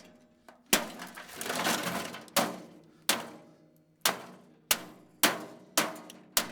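Repeated hard blows on a Presto microwave's metal body, probably from a golf club, about eight sharp strikes at uneven intervals, each ringing briefly, with a stretch of rattling debris after the first.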